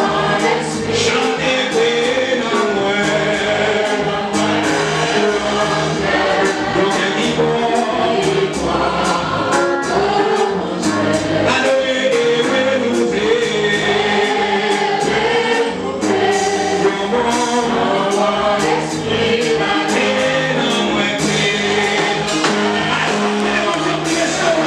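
Gospel worship song sung by many voices together over a steady beat.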